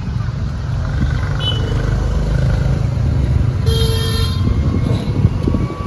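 Low rumble of road traffic, with a vehicle horn tooting about four seconds in, after a shorter toot about a second and a half in.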